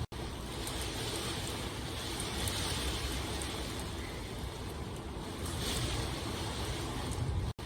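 Steady rain, a dense hiss that swells and eases every few seconds. The sound drops out to silence for an instant just after the start and again near the end.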